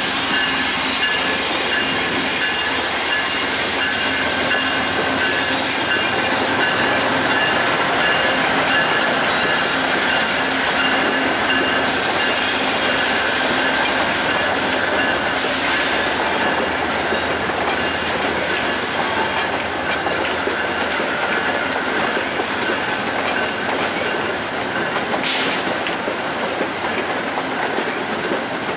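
Passenger train rolling slowly past, a GE Genesis P42DC diesel locomotive and then LRC coaches, with the steel wheels squealing steadily in several high tones and clacking over rail joints and switches.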